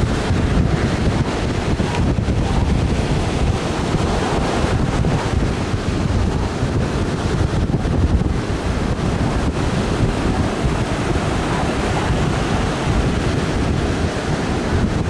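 Ocean surf breaking on the beach, mixed with steady wind buffeting the microphone.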